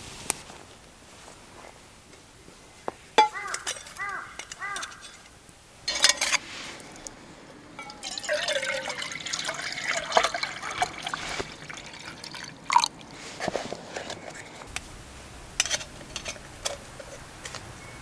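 Liquid being poured, gurgling in two stretches, among sharp clicks and knocks from handling gear.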